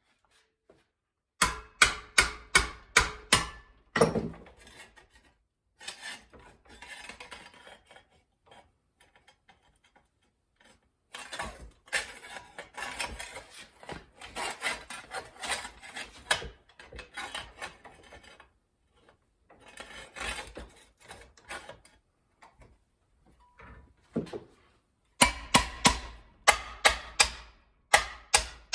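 Sheet metal being hand-formed with hand tools for a rust-repair patch: a quick run of sharp strikes, about three a second, near the start and again near the end, with long stretches of rasping and scraping between them.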